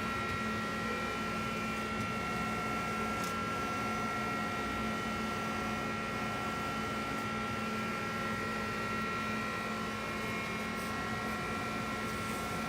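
Steady machine hum from a powered-up Mori Seiki NL1500Y CNC lathe, with a few high, steady whining tones over it.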